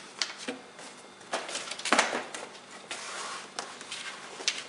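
Clear plastic bag crinkling and rustling as it is handled, with irregular crackles and a few sharp clicks.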